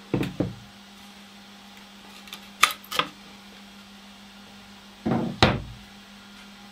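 CNC-cut birch plywood pieces knocking together as they are handled, with two sharp cracks in quick succession about two and a half seconds in as the parts are snapped free at their holding tabs.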